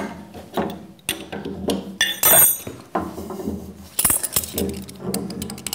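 Metal clinks and knocks of hand tools and a long level against a milling-machine stand while its leveling feet are adjusted, with a louder ringing clank about two seconds in and another about four seconds in.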